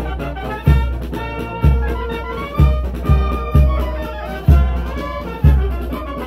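Background music with a steady, deep bass beat about twice a second and pitched instruments over it, horn-like in places.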